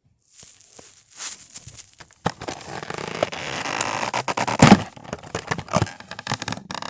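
Toy packaging being handled and torn open: plastic and cardboard crackling, tearing and scraping, with many sharp clicks and a louder knock about two-thirds of the way through.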